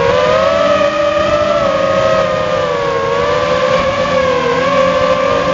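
Walkera F210 racing quadcopter's brushless motors and propellers whining in flight, heard close up from the camera mounted on the quad. The pitch wavers up and down continually with the throttle.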